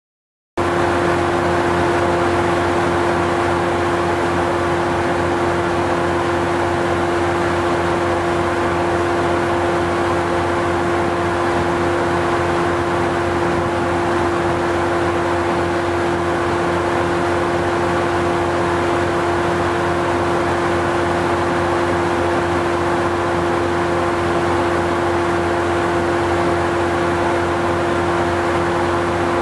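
Steady electrical hum and whir with one strong held tone, from the onboard equipment of an electric commuter railcar standing at the platform.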